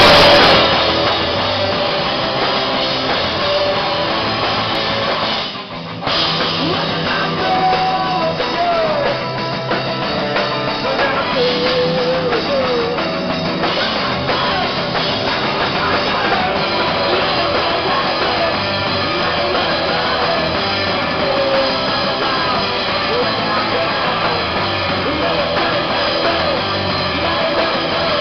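A live rock band playing loudly, with amplified electric guitar and a drum kit. The music breaks off briefly about five and a half seconds in, then comes back in.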